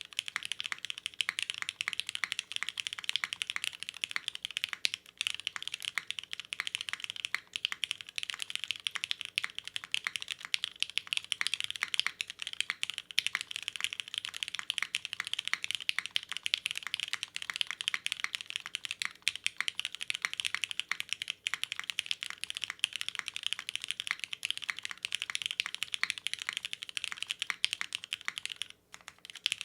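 Fast continuous typing on a custom mechanical keyboard with lubed linear MX Black switches on a carbon fiber plate and CRP keycaps: a dense, even clatter of key strokes with a brief pause near the end.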